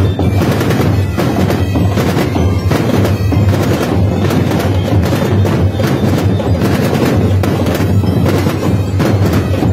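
Massed marching drumline playing loud, fast snare and larger-drum patterns, the many strokes packed so close they run together into one continuous rattle with a heavy low drum boom under it.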